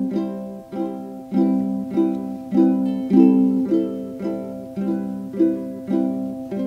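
Background music: a plucked string instrument playing a light tune, a new note or chord about twice a second.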